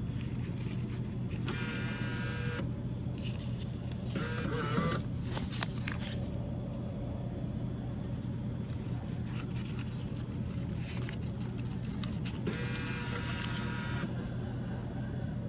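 MEI bill acceptor's motor whirring as it pulls in dollar bills: two high whirs, one about a second in and a longer one near the end, with a few clicks between. A steady low hum runs underneath.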